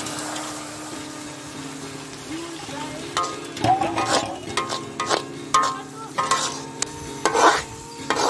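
Mutton gravy sizzling in a large iron kadai as a perforated metal ladle stirs it. From about three seconds in, the ladle scrapes and clanks against the pan several times.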